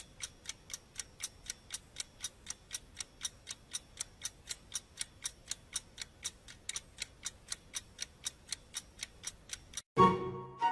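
Steady, even ticking, about four ticks a second. Music comes in near the end.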